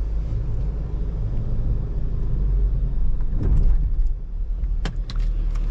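A 2022 Jeep Grand Cherokee 4xe crawling up a rock obstacle: a steady low rumble, with a few sharp knocks near the end.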